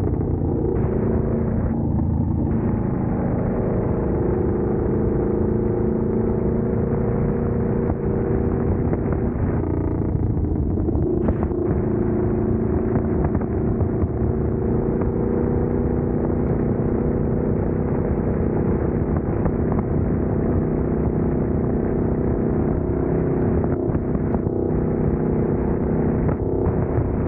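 Motorcycle engine running steadily at road speed, its pitch shifting a couple of times.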